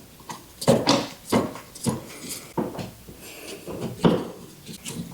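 Irregular clicks, taps and light scrapes of hand work on a wall outlet, as its metal and plastic parts and a hand tool are handled; about eight sharp knocks, spaced unevenly.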